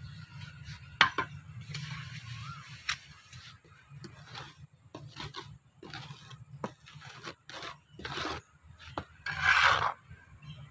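A trowel and a flat board scraping and rubbing wet cement across a tray mould to spread and level it: a series of short scrapes, a sharp knock about a second in, and a longer, louder scrape near the end.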